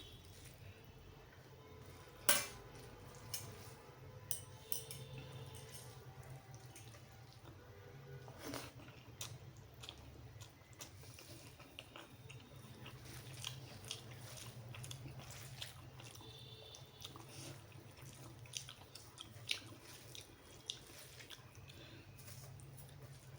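Wet chewing and eating mouth sounds of rice and egg curry, with scattered sharp smacks and clicks over a steady low hum.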